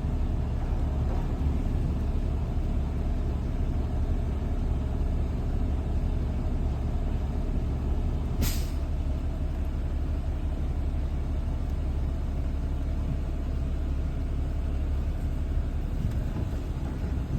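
Heavy diesel engine of a forestry machine or truck running steadily with a deep rumble, and one short hiss of air about halfway through.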